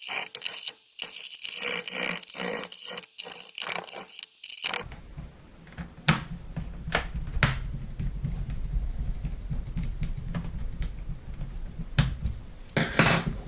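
Small screws being driven into a laptop's plastic base with a screwdriver: quick scratchy clicks, several a second. About five seconds in, the sound changes to a low rumble of the laptop being handled, with a few sharp knocks.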